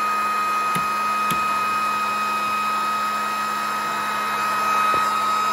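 Small electric blower of a miniature 3D-printed siren running with a steady high whine and rushing air, a few light clicks in the first second and a half and near the end. The pitch holds level and no siren wail builds: a disconnected wire has left the chopper unpowered.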